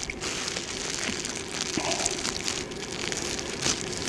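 Thin plastic freezer bag crinkling and crackling as it is squeezed and twisted in the hands.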